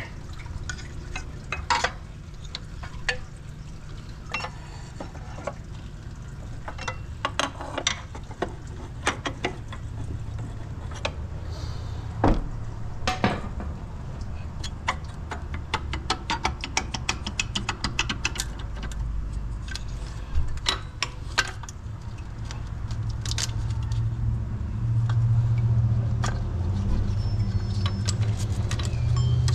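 Metal clinks and taps of hand tools and bolts while a new water pump is bolted on hand tight. A run of quick clicks comes in the middle, over a low rumble that grows louder near the end.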